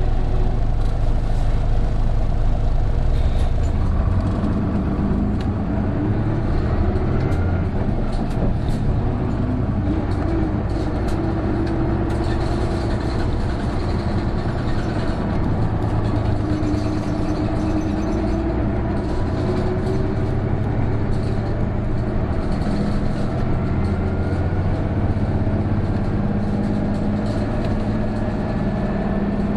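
Isuzu Erga (PJ-KV234L1) city bus heard from inside, its diesel engine running under load on a climb. A whine rises in pitch twice as it accelerates. This is the bus's characteristic abnormal noise, which comes in from about 1300 rpm as the turbo starts to work and sounds like an Aisin automatic transmission.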